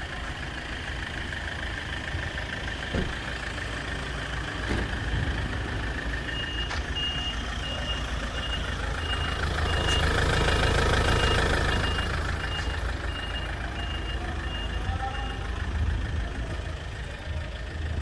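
A vehicle's reversing alarm beeping at a steady high pitch, a little under two beeps a second, from about six seconds in until about fifteen seconds, over a continuous low engine rumble; the engine noise swells louder midway.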